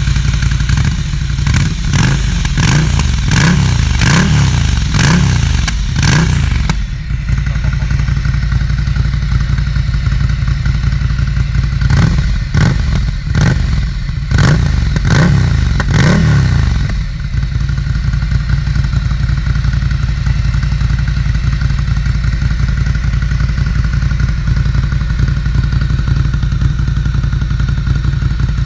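Ducati Scrambler's air-cooled L-twin running through an HP Corse GP07 silencer on the straight link pipe. It is blipped up and down quickly about six times at the start and about five times again around the middle, and idles steadily in between and for the last ten seconds or so.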